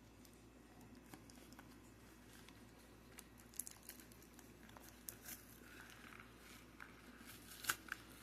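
Faint rustling and scattered light clicks of a trading-card deck box's packaging being handled and opened, with a few sharper clicks near the end.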